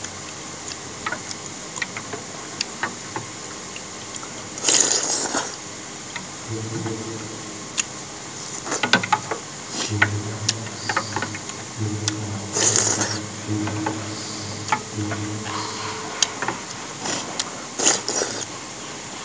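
Slurping of thick noodle soup from a spoon, in several short noisy bursts, with chopsticks and spoon clicking against a glass bowl in between. A low droning hum comes and goes through the middle.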